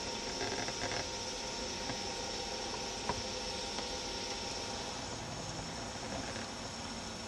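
Steady hiss with a low hum, broken by a few faint clicks in the first second and one sharp click about three seconds in.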